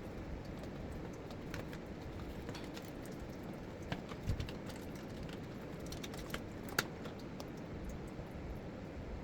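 Scattered light clicks and taps of plastic blender parts being handled and fitted while a NutriBullet 1200 motor base is reassembled, with a sharper click about four seconds in and another near seven seconds, over a steady low background rumble.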